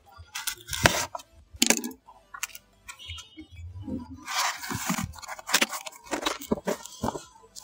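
A cardboard shipping box being pulled and torn open by hand: cardboard and packing tape scraping and tearing, with scattered knocks and clicks and a longer tearing rush about four seconds in.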